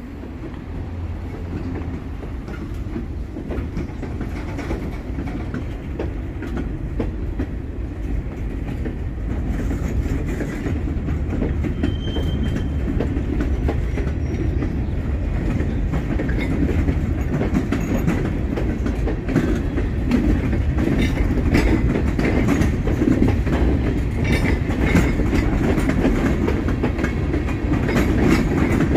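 Freight train of empty cars rolling by on the rails, wheels clicking over the rail joints over a steady low rumble, growing gradually louder.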